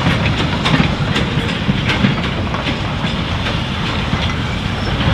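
Four-wheeled goods wagons and a brake van rolling slowly over rail joints and pointwork: a steady low rumble with irregular wheel clicks about every half second, thinning out towards the end.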